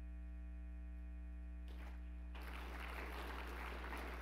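Steady low electrical hum from the sound system. About two seconds in, a dense crackling wash of audience applause comes in and continues.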